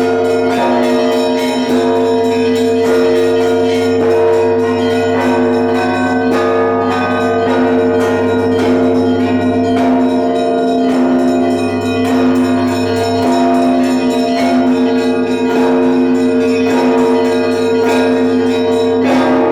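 Russian Orthodox church bells ringing: several bells of different sizes struck in quick rhythm, several strokes a second, over the long, steady hum of the big bells.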